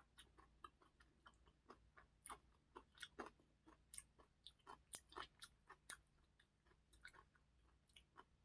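Faint close-up chewing: a mouth working a bite of bacon stir-fried kimchi, with small wet clicks about two or three times a second.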